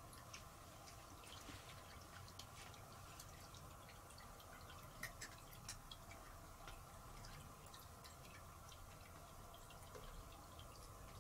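Near silence: faint room hum with scattered faint small clicks.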